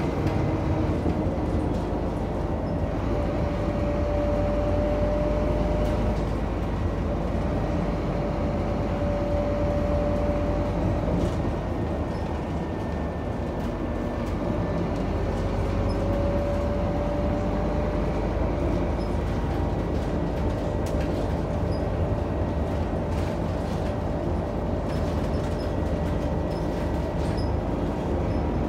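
Scania DC9 9-litre six-cylinder diesel and ZF five-speed automatic of a Scania K94UB bus running under way, heard from on board as a steady drone. A steady whine comes in for a few seconds three times.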